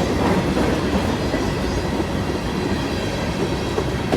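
Freight train cars rolling past close by: a steady noise of steel wheels running on the rails.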